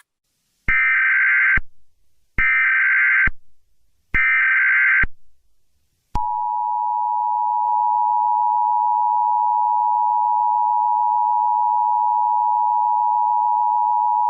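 Emergency Alert System SAME header: three short bursts of shrill data tones, each about a second long, followed about six seconds in by the EAS two-tone attention signal, a steady dual-pitched tone held for about eight seconds.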